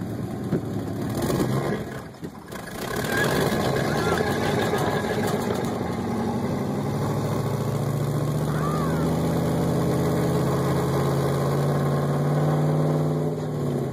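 Dodge Ram pickup truck engine running under load while towing a sled through snow. It dips briefly about two seconds in, then picks back up and holds a steady note.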